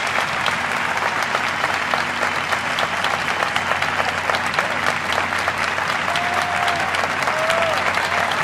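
Large concert audience applauding steadily after an orchestral performance. A few shouts from the crowd rise over the clapping near the end.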